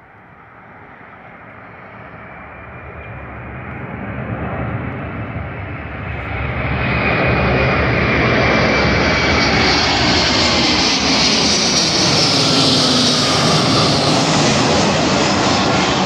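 Boeing 757-300 airliner passing low overhead on final approach, its twin jet engines building steadily louder and then loud, with a high whine that falls in pitch as it goes over. The engines are near full power, with the airliner close to a go-around in strong wind.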